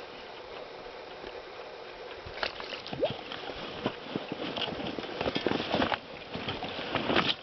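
Irregular knocks and clatters in a small boat over a steady hiss, coming in a few clusters with a louder one near the end, as a pike is being landed by hand.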